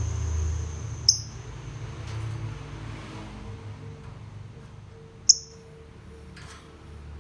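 Lovebird giving two short, shrill chirps about four seconds apart, the second louder, over a steady low background hum.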